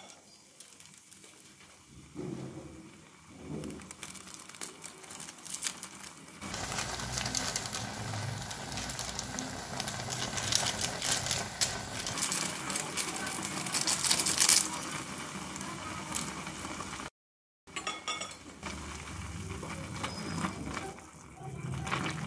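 Water boiling around a block of instant noodles in a karai, bubbling and crackling. The crackling grows louder and busier about six seconds in, then settles to a steadier bubbling.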